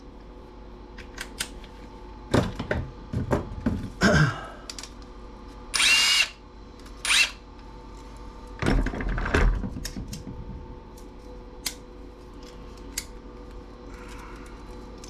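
Power drill driving a socket in two short bursts, the first about half a second long, to run a nut off. Clicks and knocks of tools and metal parts are handled between the bursts.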